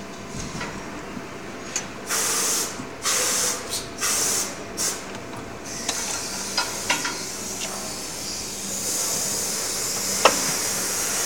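Compressed air hissing at an open plastic injection mould: four short blasts, then a longer steady hiss near the end. The moulding machine hums steadily underneath, with a few sharp metallic clicks.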